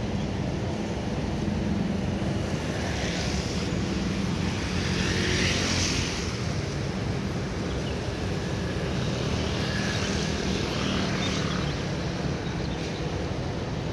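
Steady city traffic on a rain-wet road: car and motorbike engines running, with tyre hiss swelling as vehicles pass, loudest about five to six seconds in.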